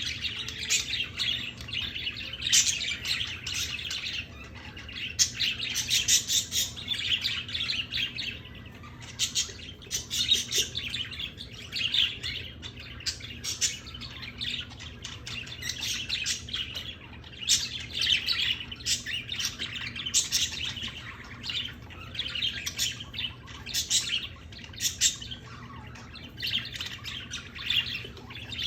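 Several small pet birds chirping busily, in quick clusters of calls that come and go throughout.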